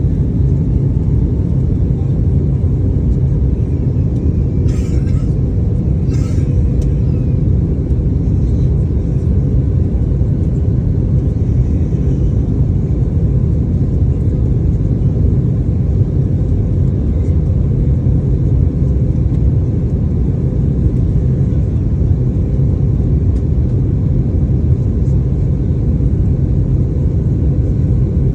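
Steady low rumble of an airliner's engines and airflow heard from inside the passenger cabin, with two brief clicks about five and six seconds in.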